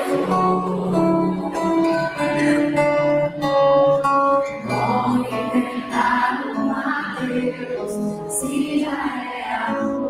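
Live recording of a woman singing a pop song into a microphone with instrumental backing, her voice high in pitch.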